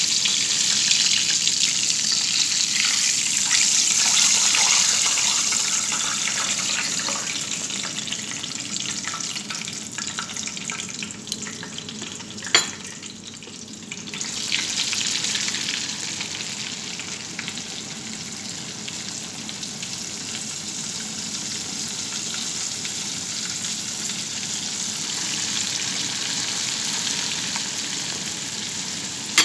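Chicken deep-frying in hot oil in a steel pan: a steady, loud sizzle. About halfway through there is a sharp click, and the sizzle dips, then swells again as a flour-dredged piece goes into the oil.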